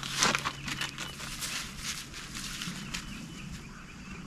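Rustling and clattering of camp cooking gear being handled, loudest in the first half second and thinning out after about three seconds. A small bird chirps again and again, clearer near the end.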